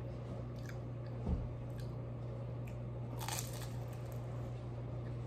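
Close-up eating sounds: a soft thump about a second in, then a loud crunchy bite into a crisp piece of takeout food about three seconds in, followed by chewing. A steady low hum runs underneath.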